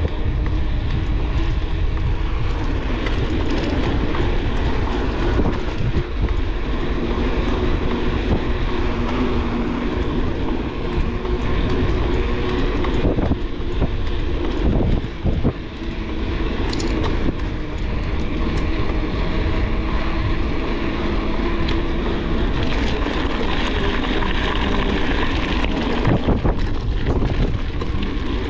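Wind rushing over the microphone of a bike-mounted action camera on a mountain bike ridden at speed, with a steady droning hum from the tyres rolling underneath. It dips briefly about halfway through.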